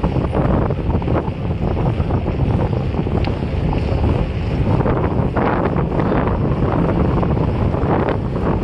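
Steady wind noise rushing over the microphone of a camera carried on a moving bike.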